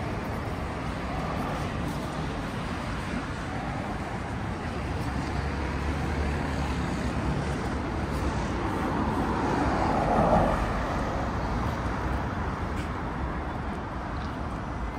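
Steady city road traffic noise, with a vehicle passing close and loudest about two-thirds of the way through.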